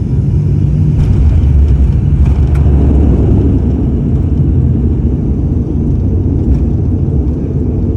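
Steady low rumble of a small propeller airliner's engines and airframe heard from inside the cabin during landing. It is louder for a few seconds near the start, with a few faint knocks.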